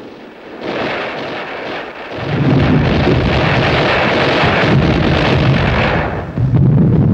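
Battle sound of continuous artillery explosions with gunfire, a dense din with a deep rumble. It swells about half a second in, becomes much louder about two seconds in, dips briefly near the end, then comes back.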